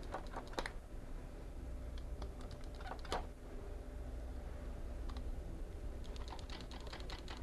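Sharp plastic clicks of a hand cutter snipping the tails off nylon zip ties, with smaller handling clicks between. The loudest snap comes about three seconds in, and there is a quick run of clicks near the end.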